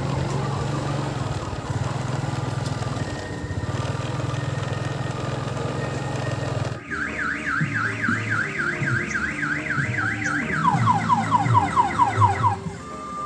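Odong-odong tour train's engine running steadily; about seven seconds in, a loud electronic siren horn starts, a fast up-and-down warble about five times a second, which switches to a run of quick falling sweeps near the end.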